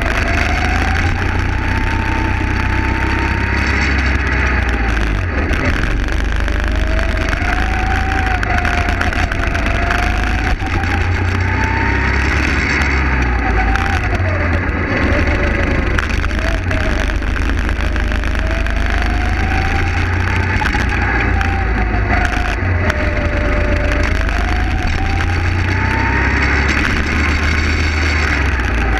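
Go-kart engine revving on track, its pitch climbing under acceleration and dropping for each corner, about six times over, over a constant low rumble and rushing noise at the onboard microphone.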